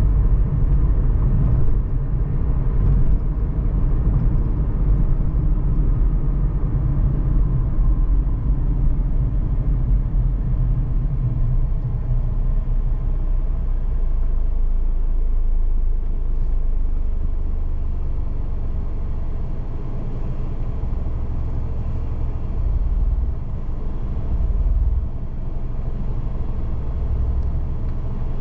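A car driving along a city street: steady low road and engine rumble, a little quieter from about halfway through.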